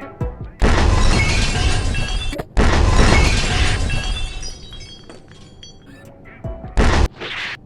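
Glass-shattering sound effect played twice in a row, each a loud crash with a tinkling tail that dies away. Two short, sharp bursts follow near the end.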